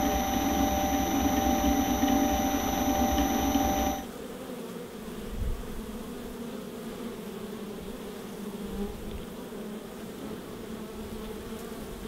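Nine-frame electric honey extractor running, its motor giving a steady whine as the drum spins. It cuts off abruptly about four seconds in, giving way to a steady hum of honey bees buzzing at a hive entrance.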